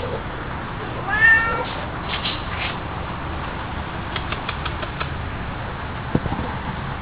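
A domestic cat meows once, a short call about a second in that rises slightly in pitch at the start.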